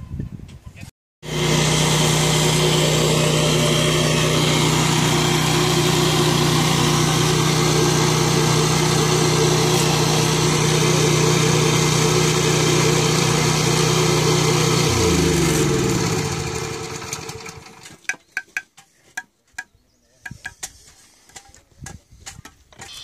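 Small petrol engine running steadily, then shut off about fifteen seconds in, its pitch dropping as it winds down. Scattered sharp taps and knocks follow.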